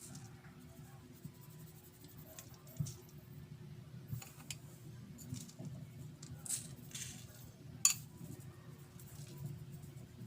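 Faint, scattered light clinks and scrapes of kitchenware as sugar-and-sesame topping is put onto palitaw, with a couple of sharper ticks, one about three seconds in and one near the end.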